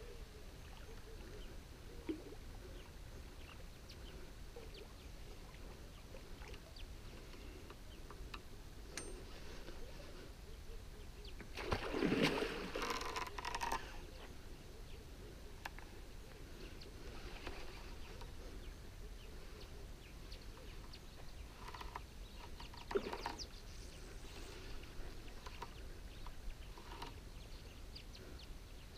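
Water splashing at the surface in front of a barbel caller rod: one louder splash about twelve seconds in, lasting about two seconds, and a shorter, sharper one near twenty-three seconds, over faint lakeside background with scattered small ticks.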